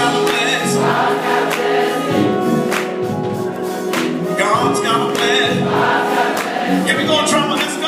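Gospel choir singing, with held notes running on without a break.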